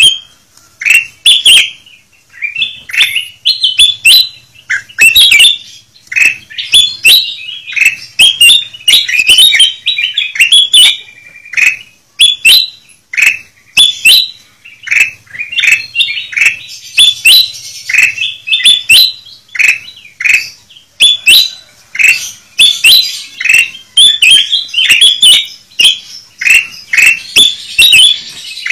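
A busy flock of ruby-throated bulbuls (kutilang emas) calling together: many quick chirps and short falling whistled notes overlapping without pause, a noisy bird-trapper's lure recording.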